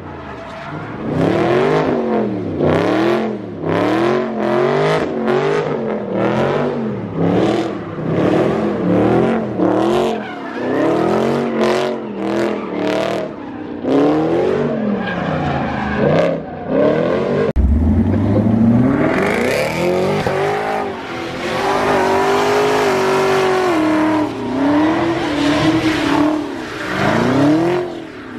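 Dodge Charger's engine revving up and down over and over, about once a second, while its rear tires squeal and spin, as during donuts. In the last third the tire screech grows louder and steadier.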